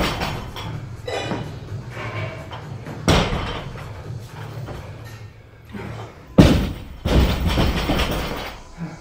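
Loaded barbell with 20 kg Eleiko bumper plates dropped onto a lifting platform during repeated clean and jerks: two heavy slams, about three seconds in and about six and a half seconds in, each with a rattling decay.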